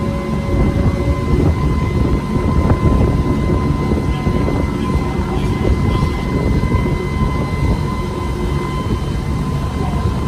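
Motor boat under way, its engine running steadily: a constant low rumble with a faint steady whine over it, mixed with rushing noise from wind and water.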